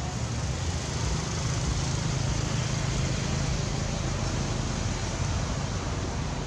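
Steady outdoor background noise: a constant low rumble with a hiss over it and no distinct events.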